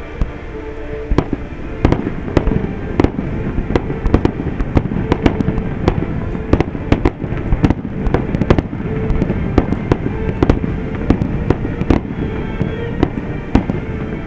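Fireworks going off: a rapid, irregular string of sharp bangs and crackles over a continuous low rumble.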